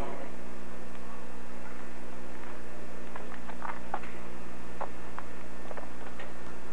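Steady low electrical hum with a few faint scattered clicks, and no speech or music.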